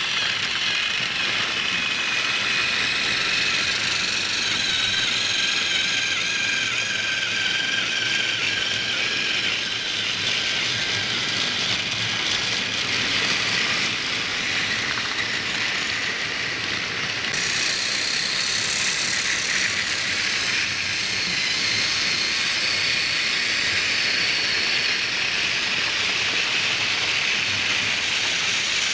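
Motorised plastic toy trains running along plastic track: a steady whirring of small electric motors and gears with a rattle of wheels, the high whine drifting slightly in pitch.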